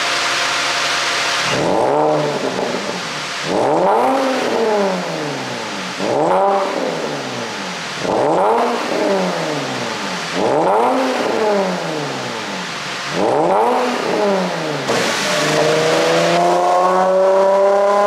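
An ECU-tuned Porsche Panamera 4's 3.6-litre V6, heard at the exhaust, idles briefly and is then blipped six times, each rev rising and falling back. About fifteen seconds in it revs up into a longer climb and is held high.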